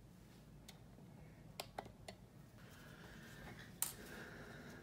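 Faint handling sounds of sewing a crocheted piece with yarn and a needle: a few soft clicks, the sharpest near four seconds in, and a light rustle in the second half.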